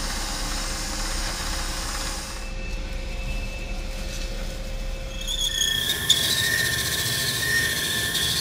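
Wood lathe running as a Forstner bit held in the tailstock bores into the spinning solid-plastic bowling ball. About five seconds in, a high squeal from the bit cutting joins the steady drone.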